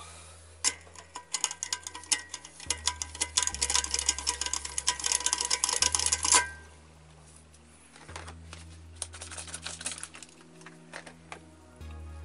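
Rapid, dense clicking and scraping from hand work on a rice cooker's metal and plastic parts, in two spells: the first ends abruptly about six seconds in, the second starts about two seconds later.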